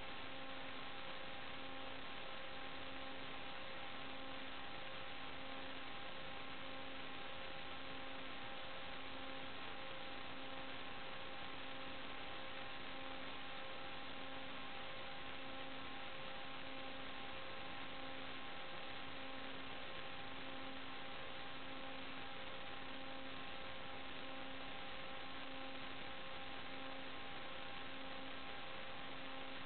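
Steady electrical hiss with a constant hum of several stacked tones, the lowest one pulsing about once a second. It is interference noise on the recorded video's audio and stays unchanged throughout, with no sign of the motors.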